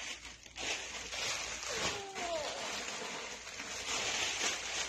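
Plastic garment bags rustling and crinkling as they are handled, in several soft swishes. About two seconds in there is a brief falling vocal sound from a young child.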